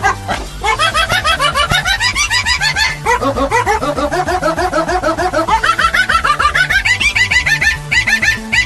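Music built from a fast run of short pitched notes, about six or seven a second, in the manner of a dog-bark meme song. The melody slides down in pitch over the first few seconds, then climbs back up, over a steady synth bass line.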